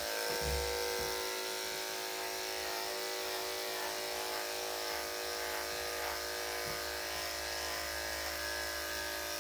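Electric dog-grooming clippers fitted with a number 10 blade running steadily, a constant buzzing hum as they shave the short fur under the dog's front leg and armpit.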